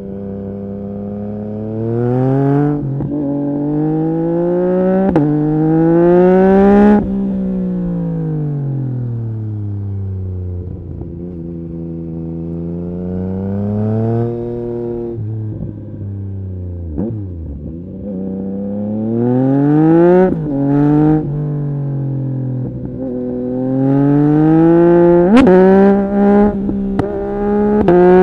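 Yamaha MT-09 SP's three-cylinder engine and exhaust under hard acceleration, revs climbing and dropping back with each upshift in the first seven seconds. Then the revs fall away and the engine runs lower for several seconds. In the second half it pulls up through the gears again with several quick upshifts.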